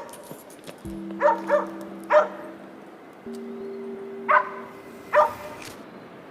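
A dog barking five times in short single barks, the first two close together, over background music with long held low notes.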